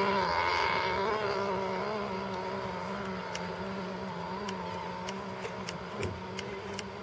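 Radio-controlled model speed boat's small engine running flat out with a steady buzz that fades gradually as the boat runs away across the pond. A few faint ticks come in the second half.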